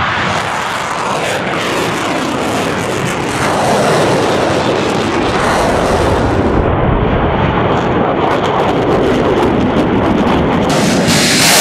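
Rockets launched in a salvo from truck-mounted launchers: a loud, continuous rushing noise of rocket motors with slow sweeping rises and falls, turning hissier near the end.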